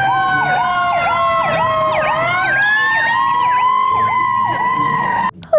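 Fire engine siren: a slow wail that falls for about two seconds and then rises, with a faster yelp repeating about twice a second laid over it. It cuts off suddenly near the end.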